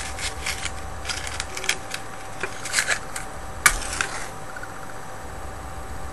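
Small clicks and rustling of a cigarette being handled, then one sharp click of a lighter being struck about three and a half seconds in as it lights the cigarette.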